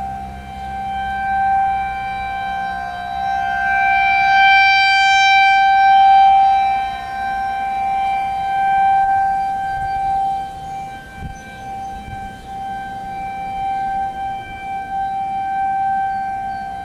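Federal Signal 2001-SRNB rotating electromechanical tornado siren sounding a steady tone during its weekly test. It swells louder and softer as the rotating horn sweeps toward and away, loudest about four to six seconds in.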